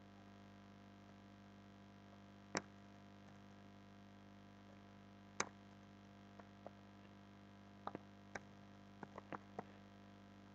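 Computer keyboard keystrokes as code is typed: two single clicks a few seconds apart, then a run of quicker, lighter taps near the end. A faint steady electrical hum sits under them.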